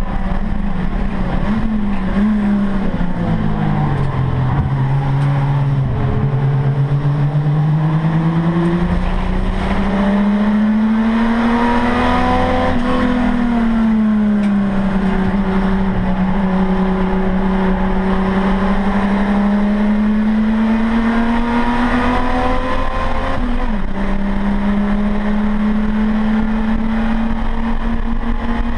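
Saloon race car's engine heard from inside the cabin under racing load, its pitch rising and falling with the throttle: sinking a few seconds in, climbing to a peak about halfway, dipping, then rising again and holding steady near the end, over constant road and tyre rumble.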